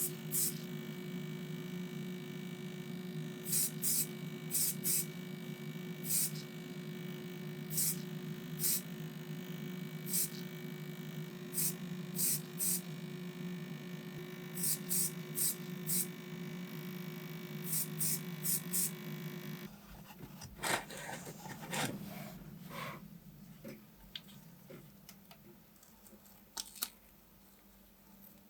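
Short hissing spray bursts in twos and threes over a steady motor hum, typical of spray-painting a small model with a compressor-fed sprayer. The hum cuts off about twenty seconds in, followed by light clicks and handling noises.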